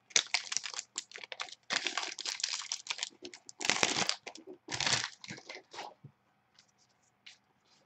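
Foil wrapper of a Prizm trading-card pack crinkling in a run of irregular crackles as it is torn open by hand. The crackling stops about six seconds in.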